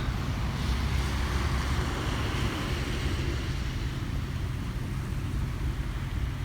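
Wind buffeting the phone's microphone in a snowstorm: a steady low rumble with a hiss that swells briefly about two to three seconds in.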